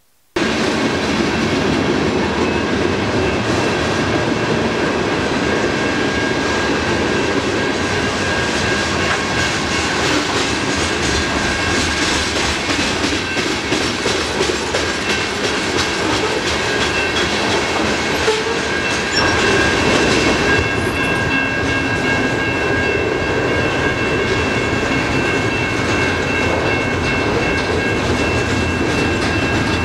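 Freight train cars rolling past at speed, their wheels clattering over the rails in a steady rumble, with a couple of thin high-pitched tones held over the noise. The sound cuts in suddenly about half a second in.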